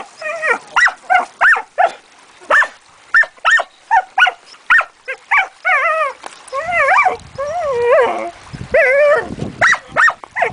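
A dog yipping and whining over and over: a quick run of short high yips, then from about halfway longer wavering whines. The dog is eager and frustrated over a rock it wants.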